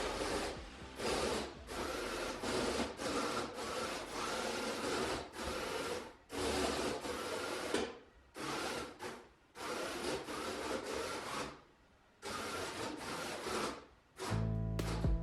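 A small 3D-printed robot car's electric drive motors whirring in short bursts as it is driven, starting and stopping again and again with brief pauses between runs. Music comes in near the end.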